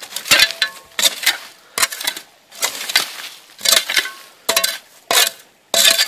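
Metal hand digger chopping and scraping into stony soil and leaf litter: about a dozen sharp strokes in irregular clusters, with metallic clinks where the blade hits stones.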